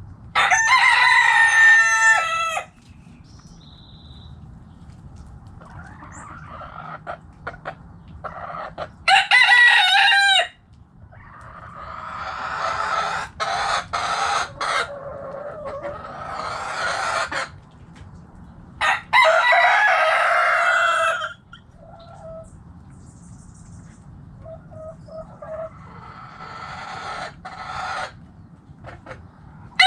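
Roosters crowing, three long crows about nine or ten seconds apart, each dropping in pitch at the end, with hens clucking between them.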